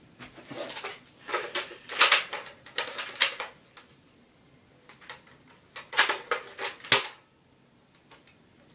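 Irregular sharp clicks and knocks of hard objects, in two clusters: a run over the first three seconds or so and another around six to seven seconds in.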